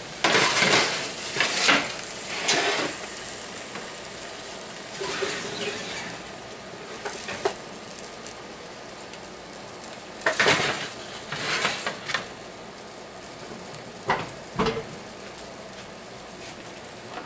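Creamy shrimp and zucchini sauce simmering in a cast-iron skillet, a steady low sizzle. Several short bursts of clattering and rustling from pans and foil being handled break in, near the start, about two-thirds through and once more soon after.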